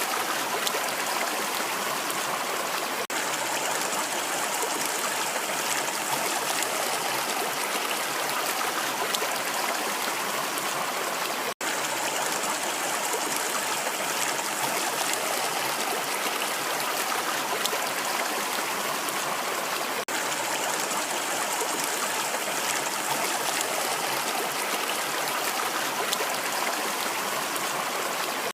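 Rushing water running steadily with an even, unbroken rush, dropping out for an instant about eleven seconds in.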